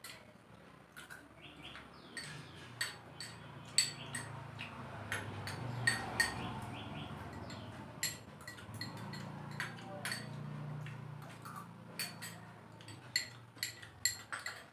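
Spoons clinking and scraping against small bowls while eating: many sharp, irregular clinks with a short ring, over a faint low hum.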